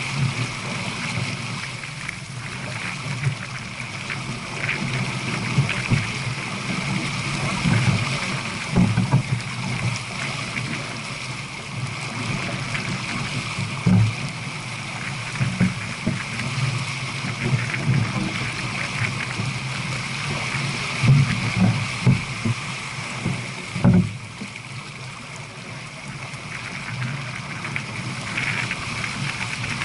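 Water rushing along the hull of a J/24 sailboat running downwind at about seven knots, with wind buffeting the microphone in irregular low thumps.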